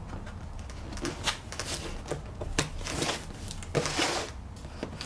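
Scissors cutting through sellotape on a cardboard box, with irregular sharp clicks and crackles of tape and cardboard.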